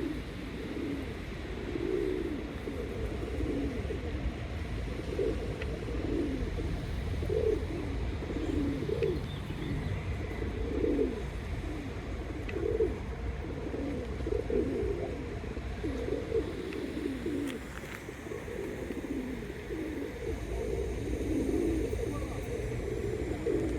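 Birds giving low, repeated cooing calls, one after another throughout, over a steady low rumble.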